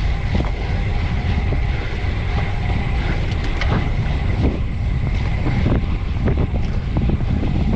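Wind buffeting the microphone of a bicycle-mounted camera while riding at speed, a dense low rumble with road and tyre noise, broken by scattered small ticks and rattles from the bike.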